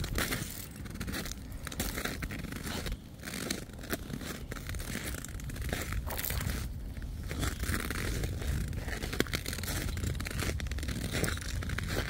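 Footsteps crunching in deep snow, one step after another without a steady rhythm.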